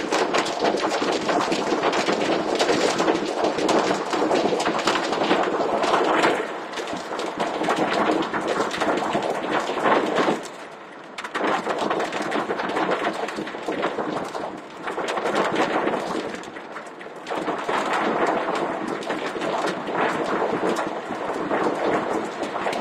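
Hail and torrential rain pelting down: a dense, loud rattle of countless impacts that swells and eases in waves, dropping sharply for a moment near the middle.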